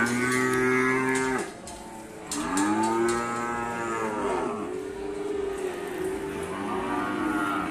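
Cattle mooing: three long calls one after another, the first steady, the second rising and falling in pitch, the third lower and drawn out.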